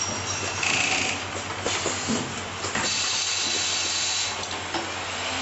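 Automatic pneumatic screw-fitting and assembly machine for sewing-machine motors running, with bursts of compressed-air hiss and light clicks from its cylinders. There is a short hiss about a second in and a longer one from about three seconds in.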